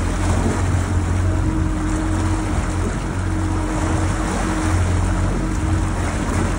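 Honda 115 four-stroke outboard motor running steadily at cruising speed, a constant low drone, over the rush of the churning wake and wind.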